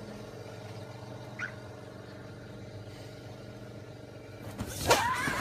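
A steady low hum, like a distant motor, with one short rising chirp about one and a half seconds in; near the end a rush of noise builds into a sharp knock as a girl throws herself onto an inflatable tube at the top of a slip-and-slide.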